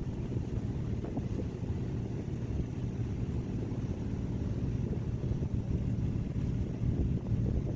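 Fishing boat's engine running steadily, a low continuous rumble.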